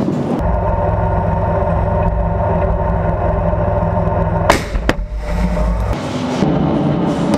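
A tank's engine running with a steady low hum, broken about halfway through by one very loud blast of its main gun firing and a second sharp crack right after. The engine sound gives way near the end to a steady rushing outdoor noise.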